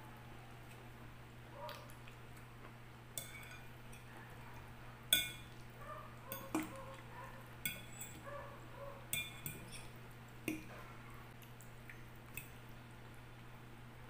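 Metal fork clinking and scraping against a glass bowl while forking up vegetable salad: about eight sharp clinks with a brief glassy ring, the loudest about five seconds in. Soft chewing sounds fall between them.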